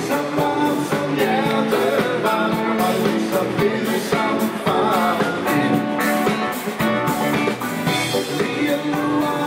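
Live party band music in a rock style, with a man singing into a microphone.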